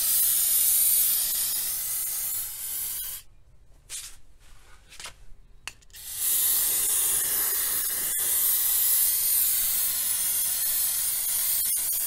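Aerosol can of brake parts cleaner spraying in long hissing blasts, broken about three seconds in by a few short squirts, then spraying steadily again from about six seconds on.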